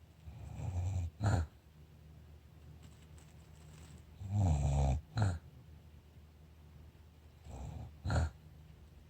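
Snoring in deep sleep: three snores, each a rumbling breath of about a second followed at once by a short, sharp snort.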